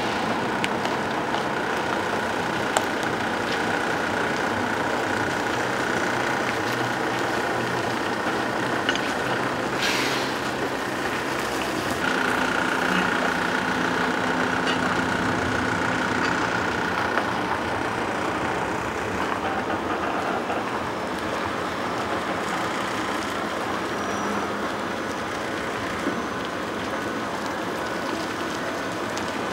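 Heavy truck engine running steadily as a tractor unit hauls an empty multi-axle low-loader trailer at walking pace, with the trailer's tyres rolling. There is a brief hiss about ten seconds in.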